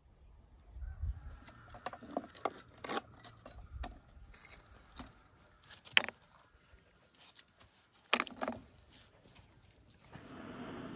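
Hollow charcoal briquettes clunking and scraping as they are stacked over kindling in a metal bucket stove: a run of irregular light knocks, the sharpest about six seconds in and again about eight seconds in. Near the end a steady rushing noise starts and keeps building.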